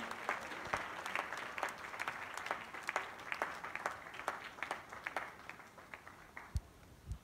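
Church congregation applauding, dense at first, then thinning and dying away about six seconds in. A couple of soft low thumps come near the end.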